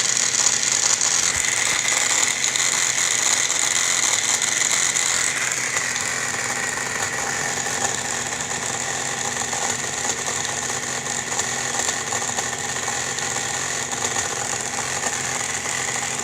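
Air conditioner running: a steady mechanical whir with a low hum and a strong high hiss, easing slightly in pitch and level about six seconds in.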